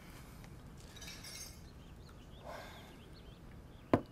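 A single sharp crunch as a bite is taken into a crisp snack, about four seconds in, over quiet room tone.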